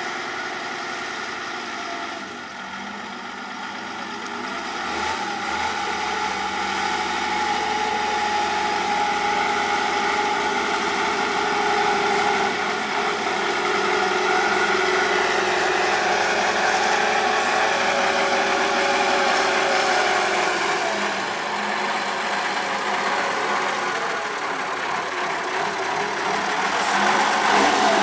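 Big diesel engine of a 6x6 trial truck running and working through the course, its pitch slowly rising and falling as the revs change, louder after the first few seconds and again near the end.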